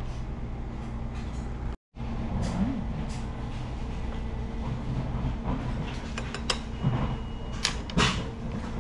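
Steady low mechanical hum, cut off briefly just before two seconds in. A few sharp clicks and clatters come near the end.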